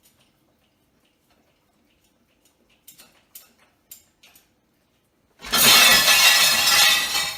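A few faint light taps, then about five seconds in a loud crash of something falling and breaking, clattering on for about two seconds.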